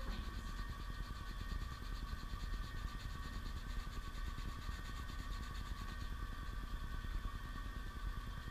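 Tap water running steadily from a gooseneck faucet into a stainless steel scrub sink while hands and forearms are scrubbed with a scrub sponge-brush, over a steady hum.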